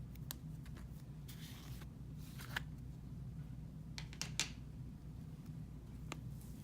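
Fluffy cloud slime being stretched and squished by hand: scattered soft crackles and snaps, with sharper clicks about two and a half and four and a half seconds in, over a low steady hum.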